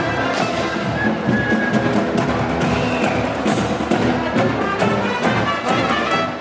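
Marching band playing: sustained horn notes over a steady beat of drums and percussion.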